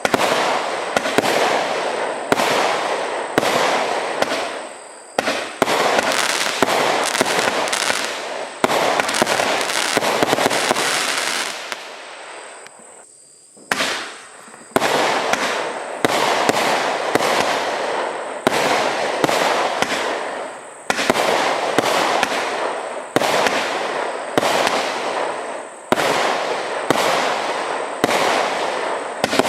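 Consumer firework barrage firing shot after shot, sharp reports about every half second to a second, each trailing off. A denser run of rapid shots comes in the middle, then a brief lull about twelve seconds in before the shots resume.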